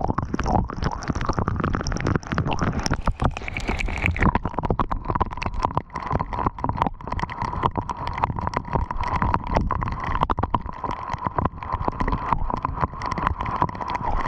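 Strong wind buffeting a GoPro's microphone in a storm, a heavy low rumble, with wind-driven rain and small hail pelting the camera in dense irregular taps. A thin steady tone runs underneath.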